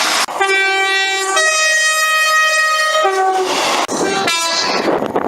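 Train's two-tone horn: a higher note lasting about a second, then a longer lower note, followed about three seconds in by a few shorter blasts. Near the end the horn gives way to the rushing noise of a moving train.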